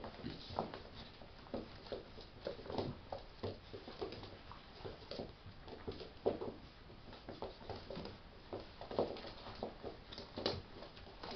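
Tibetan terrier puppies play-wrestling with an adult Tibetan terrier on a wooden floor: irregular scuffling and paw patter, with short soft dog noises scattered throughout.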